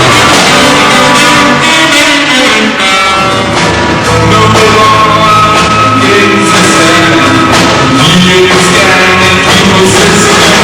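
Rock band playing loudly: electric guitar, bass and drums, with a voice singing over them.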